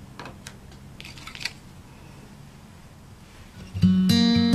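A few faint taps and rustles of cardstock being handled and set down on a plastic scoring board. Near the end, acoustic guitar background music starts and becomes the loudest sound.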